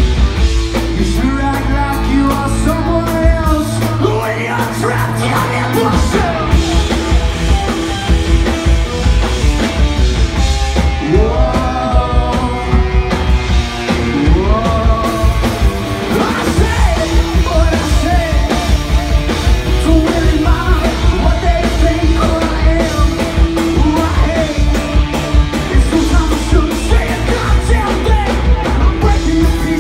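Live rock band playing: electric guitar, electric bass and drum kit, with a lead vocalist singing over them.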